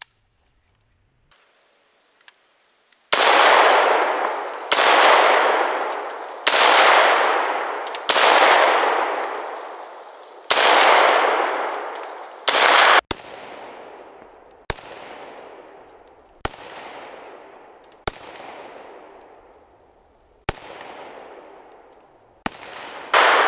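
Arsenal SLR-104FR semi-automatic rifle firing 5.45x39mm, about a dozen aimed shots one every one to two seconds, starting about three seconds in. Each report is sharp and trails off in a long fading echo.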